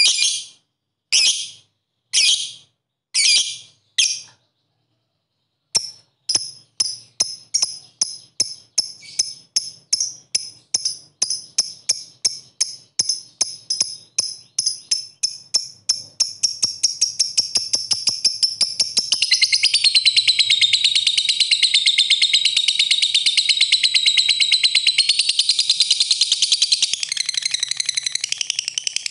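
Fischer's lovebird calling: sharp high chirps about a second apart, then after a short pause a run of chirps that speeds up and runs together into a long unbroken rapid chatter, the lovebird's 'ngekek' trill.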